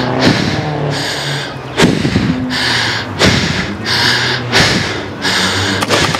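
Fast, heavy breathing close to a player-worn microphone, with a sharp thump about every second and a half.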